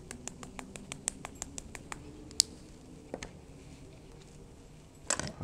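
Eggs crackling in a hot pan on a gas camping stove: many small irregular pops, a louder single pop about two and a half seconds in, and a louder burst of noise near the end.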